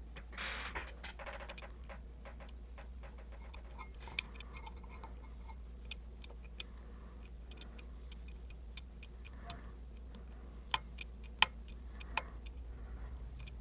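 Lock pick and tension wrench working the pin stacks of an Emhart Black Belt lock cylinder: a short scrape near the start, then scattered small metallic clicks. The clicks grow sharper and louder about eleven seconds in.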